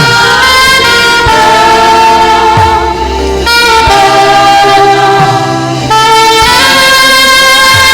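Saxophone playing a slow gospel melody of long held notes with sliding bends, over a backing track with bass and a steady drum beat.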